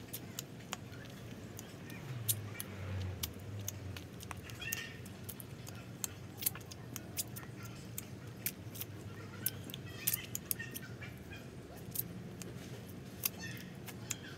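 Mouth sounds of a girl biting and sucking on a lemon half: irregular wet clicks and smacks, with a brief low hum about two seconds in.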